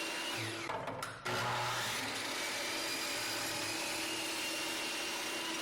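Table saw running steadily as it cuts a wooden square in half into triangles, with a brief dip and change in the sound about a second in.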